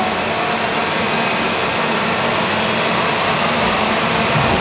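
Several gas chainsaws running together in a steady, loud drone over the noise of a crowd.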